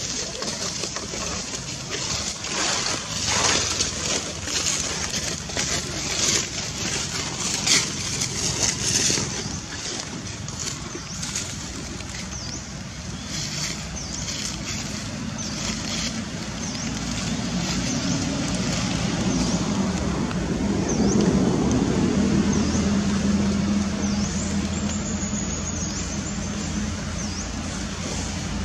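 Dry leaf litter rustling and crackling in quick, irregular snatches. From about halfway through, the low, steady rumble of a motor vehicle builds up, is loudest about three quarters of the way in, and then eases off slightly.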